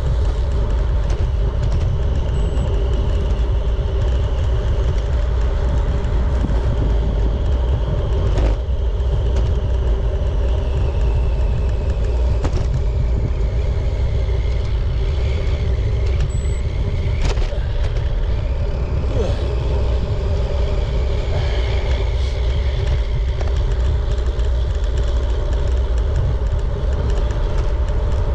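Steady deep rumble of wind buffeting the microphone, with road and tyre noise from a bicycle ride. A couple of sharp clicks and faint high whistling tones come and go.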